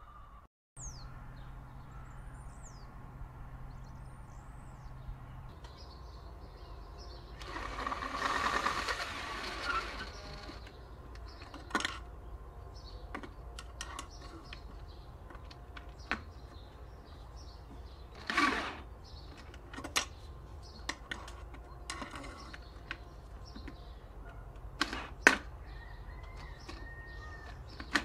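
Cordless drill driving screws to mount a wooden nest box on a tree: it runs for about three seconds a third of the way in, and again briefly later. In between come sharp clicks and knocks, and a few bird chirps near the start.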